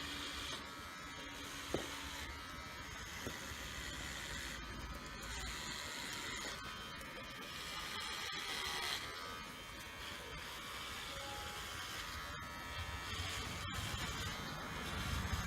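Cordless rechargeable dog hair clipper, with a ceramic upper blade over a stainless steel lower blade, running steadily.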